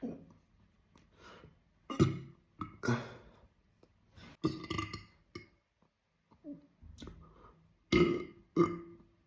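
A man burping on command, a string of about ten short burps of varying strength, the loudest about two, three and eight seconds in.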